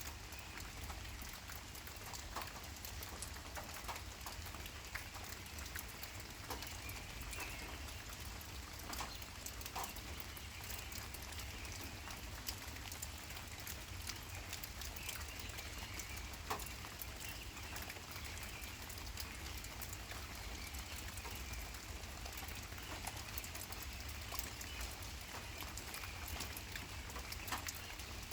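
Woodpecker pecking at wood: scattered, irregular sharp taps, some louder than others, over a steady low background.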